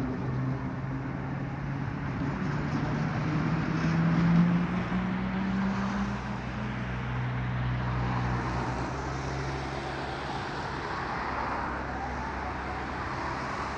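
City road traffic: steady traffic noise with a vehicle engine hum whose pitch rises about four to six seconds in, then fades, leaving the even rush of passing cars.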